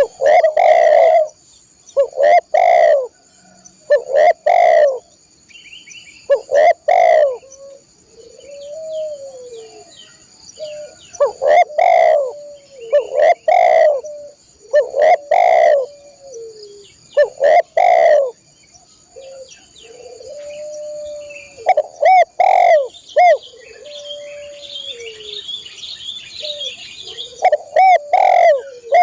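Spotted dove (tekukur/derkuku) cooing loudly, its low coos repeated in groups every second or two, with softer drawn-out gliding coos between. Faint chirps of small birds and a steady high-pitched whine sound behind it.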